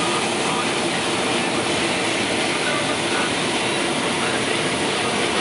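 Combine harvester running while harvesting corn, heard from inside its cab: a loud, steady, even machine noise of engine and threshing gear with no change in pitch.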